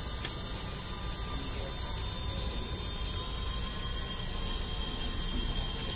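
Homemade mini water pump driven by a small 12 V DC motor running steadily, with a faint steady whine over the hiss and splash of its water jet falling back into a tub.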